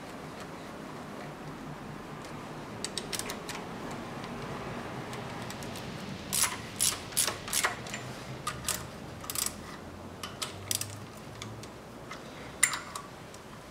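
A ratchet wrench on a socket extension clicks in short irregular runs as camshaft bearing cap bolts on a Toyota 3S-FE cylinder head are snugged down. The loudest single click comes about a second before the end.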